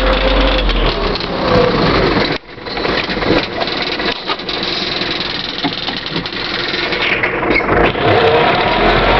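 Zetor 7341 Super Turbo tractor's turbodiesel engine running under load while plowing snow. The sound drops out abruptly for a moment about two and a half seconds in, then carries on.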